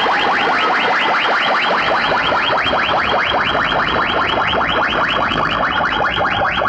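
Large DJ sound system's speaker stack blasting an electronic sweep effect: short rising tones repeating fast and evenly, about six a second, played very loud.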